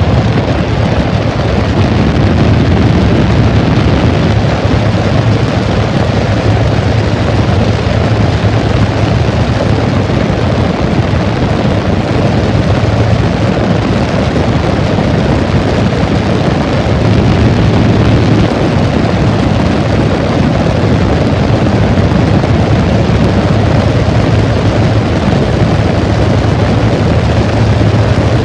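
Loud, steady rush of air with a low hum underneath.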